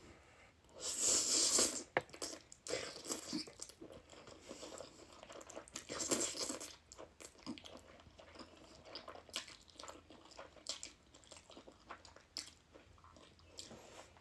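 Close-miked mukbang eating: a person chewing a mouthful of noodles, with many small wet chewing clicks. There are two louder bursts, each about a second long, about a second in and again about six seconds in.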